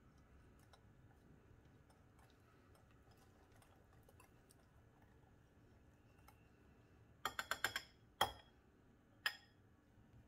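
Faint stirring of a thick spice paste in a glass bowl. About seven seconds in, a quick run of about five clinks, then two sharper knocks about a second apart, as metal kitchen utensils knock against the glass bowl.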